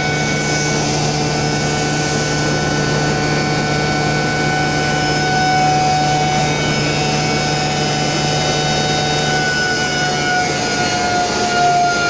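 Stainless-steel hammer-type grinding mill (pulverizer) running at full speed, a loud steady whine made of several tones over a low hum. About ten seconds in the pitch starts to fall as the machine is switched off and begins to run down.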